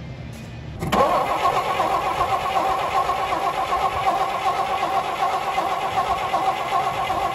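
A 1949 Dodge truck's flathead straight-six being cranked over by its starter motor. It kicks in abruptly about a second in and turns steadily, with a steady whine from the starter.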